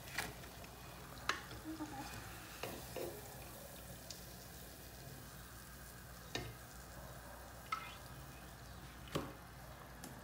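Hot frying oil sizzling faintly and steadily in a pot, with about six short, sharp knocks of a plastic slotted spoon against the pot as fried rabanada slices are lifted out and set to drain.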